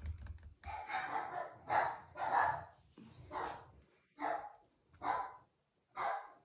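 A dog barking repeatedly, about one bark a second.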